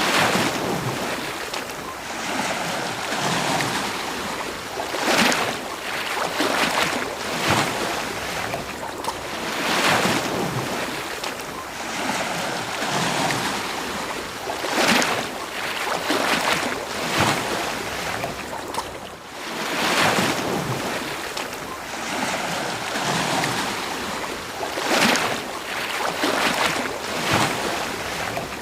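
Ocean surf washing onto a beach: a steady hiss of breaking water that swells and eases, with a stronger wave surging every few seconds.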